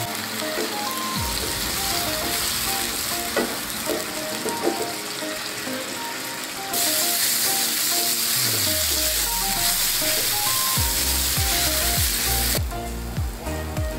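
Tomato puree and fried onions sizzling in a nonstick frying pan while being stirred with a wooden spatula; the sizzle gets louder about seven seconds in and drops back shortly before the end. Light background music plays under it, with bass notes joining in the second half.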